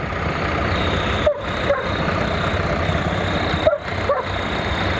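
Several vintage tractor engines running steadily at low speed as the tractors drive slowly past close by. The nearest is a red-and-grey Massey Ferguson 35.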